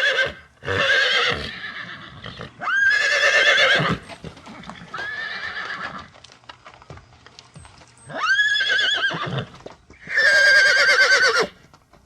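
Horse whinnying again and again: about five loud, quavering calls, each a second or so long, some opening with a quick rise in pitch, one in the middle quieter than the rest.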